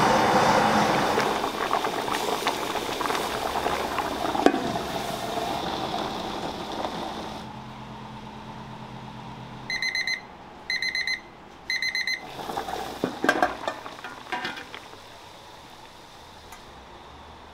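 Gas burner flames rushing under a wok, fading out after several seconds. Then come three short, evenly spaced electronic beeps and a few light knocks.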